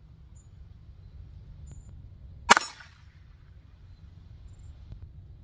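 A single .22 LR pistol shot about two and a half seconds in, with a short echo trailing off.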